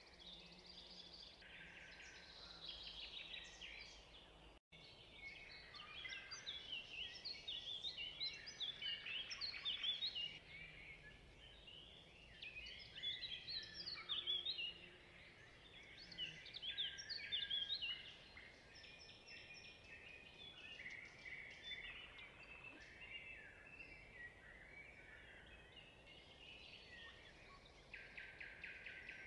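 Faint chorus of songbirds chirping and singing, many short overlapping calls, with a brief dropout about five seconds in.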